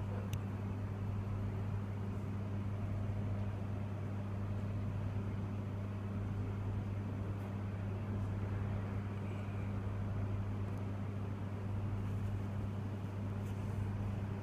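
Steady low background hum that stays unchanged throughout, with no regular ticking from the watch.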